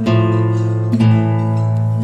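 Background music played on acoustic guitar, with a new chord struck about once a second.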